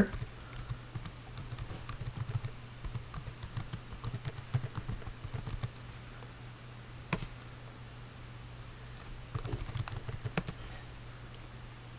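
Computer keyboard typing: irregular keystrokes in a run over the first few seconds, one louder single keystroke about seven seconds in, and another quick run near ten seconds. A low steady hum sits underneath.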